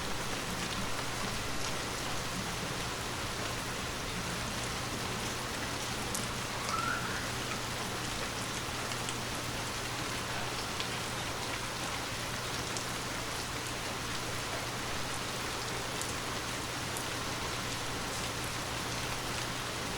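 Steady rain falling, an even hiss with scattered individual drops ticking; a short chirp stands out about seven seconds in.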